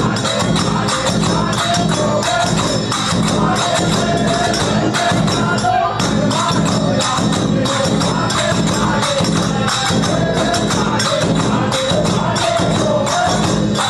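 Instrumental interlude of Indian folk pad music: jingling hand percussion keeps a fast, even beat under a short, repeated melody line and a steady low drone.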